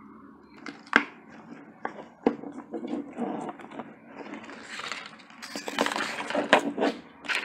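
Plastic toy packaging being handled and opened: a few sharp clicks and cracks in the first couple of seconds, then a longer stretch of crinkling and crackling from about three seconds in.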